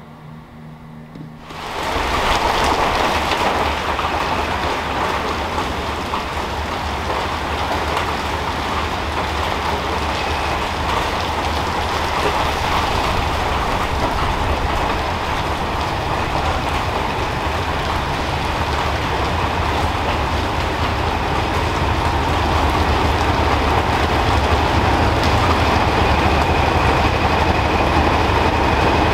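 Class 31 diesel-electric locomotive running as it draws a train slowly into a station, engine noise with wheels on the rails, steady and growing slightly louder toward the end. Before it, about the first two seconds hold only a quieter low hum.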